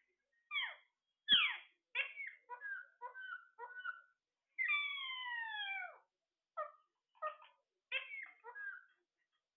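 Parrot calling: a run of short chirps and squawks, several falling in pitch, with one long falling call in the middle, lasting about a second and a half. The loudest call comes about a second in, together with a soft knock.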